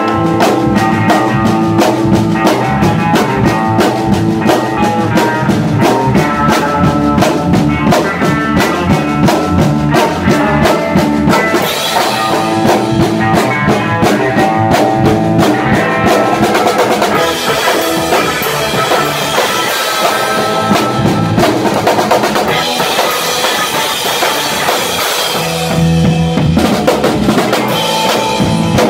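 Live band playing loud, a drum kit driving the beat with constant kick, snare and cymbal strokes under held guitar notes. The cymbals grow busier about halfway through.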